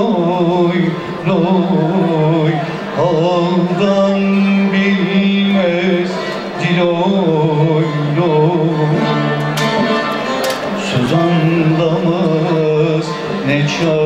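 Man singing a Turkish folk song with a wavering, ornamented melody, accompanied by his own plucked string instrument over a steady low drone, amplified through a PA.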